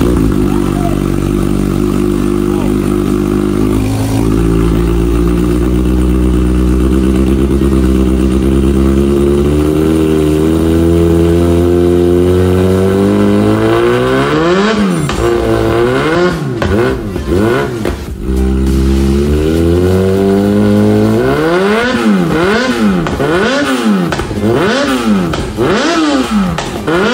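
Kawasaki ZX-6R's inline-four engine through an Austin Racing exhaust with titanium header, idling steadily at first, then revved in quick throttle blips, each a sharp rise and fall in pitch. There are two runs of blips with a short idle between, the second run faster and closer together.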